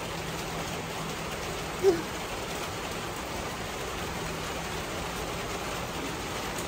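Steady rain falling, an even hiss with no break. One short pitched sound stands out about two seconds in.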